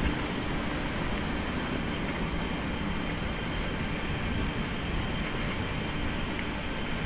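Steady city noise: a continuous rumble and hiss with no distinct events standing out.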